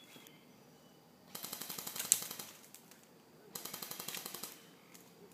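Airsoft gun firing two full-auto bursts of rapid clicking shots, each about a second long, with a pause of about a second between them.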